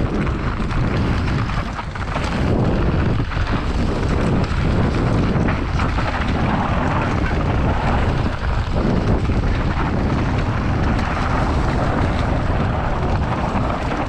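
Mountain bike riding fast down a dry dirt and leaf-litter trail: steady wind noise on the camera microphone over the tyres running on loose dirt, with small clicks and rattles from the bike over bumps.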